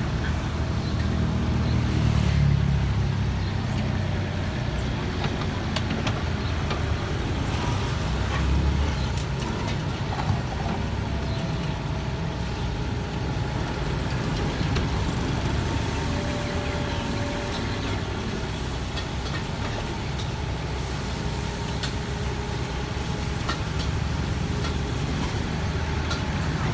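Kubota excavator's diesel engine running steadily while it digs and scoops soil, swelling under load about two seconds in and again about eight seconds in, with a sharp knock of the machine's parts about ten seconds in.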